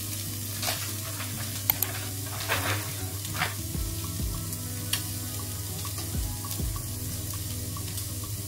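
Spiced chickpeas sizzling in hot oil in a non-stick frying pan, a steady frying hiss with scattered small clicks and pops.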